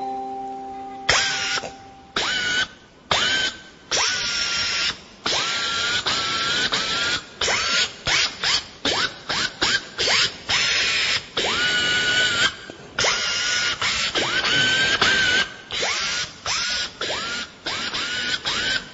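A small electric motor run in many short on-off bursts. Each time its whine rises quickly to a steady pitch and then cuts off.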